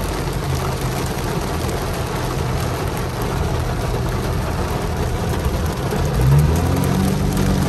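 Heavy rain beating on a car's windshield and roof over the car's engine running. About six seconds in, the engine revs up as the car pulls away.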